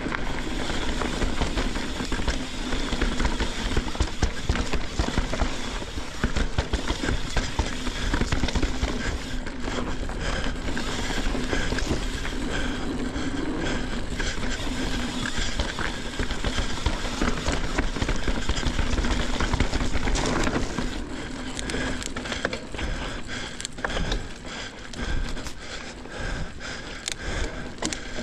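Mountain bike rolling fast down a dirt trail: constant rushing tyre and trail noise, with the bike rattling and knocking over rough ground throughout.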